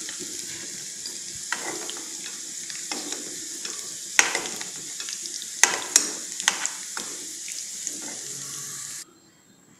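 Potato pieces sizzling steadily in hot oil in a kadai, with a metal spatula scraping and knocking against the pan several times as they are turned. The potatoes are fried through. The sizzle cuts off about nine seconds in.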